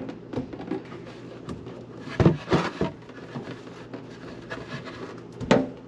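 Hands working a loosened PVC sink drain trap with a cloth over a plastic bucket: rubbing and handling, with a few sharp knocks of plastic about two to three seconds in.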